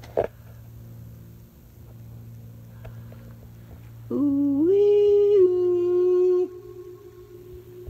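A person humming a held note about four seconds in: it starts low, steps up after half a second, and is held for about two seconds before stopping abruptly. It rings in a large empty concrete hall.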